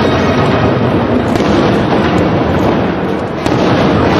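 Aerial fireworks going off in a continuous loud barrage: dense crackle with a few sharp bangs standing out.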